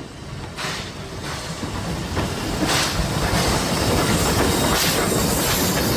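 Steam locomotive running, with steam hiss and exhaust chuffs that grow louder over the first few seconds and then hold steady.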